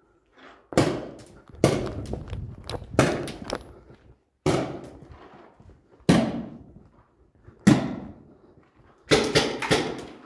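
Paintball markers firing single echoing shots at irregular intervals, with a quick run of three or four shots near the end. Each pop rings on in the bare concrete hall.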